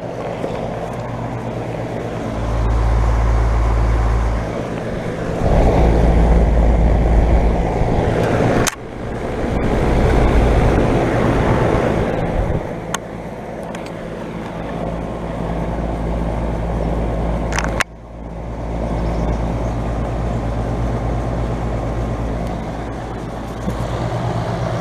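A 2012 Bryant Legacy Series central air conditioner's outdoor unit running just after switching on: a steady compressor hum under the whoosh of the condenser fan. Several stretches of heavy low rumble come and go in the first half, and there are sharp clicks about nine and eighteen seconds in.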